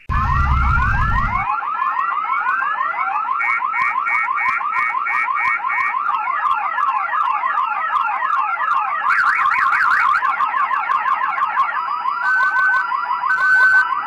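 Car alarm siren cycling through its tone patterns: fast repeated rising chirps, a run of quick beeps about three or four a second, then rapid up-and-down warbling. A short low rumble sounds under the first second and a half.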